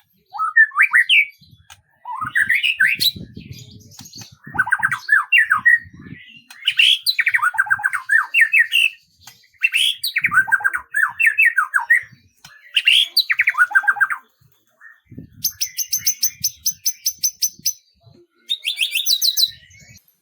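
A songbird singing varied phrases of quick whistled notes that sweep up and down, with short pauses between phrases. Near the end it switches to two fast, high, even trills.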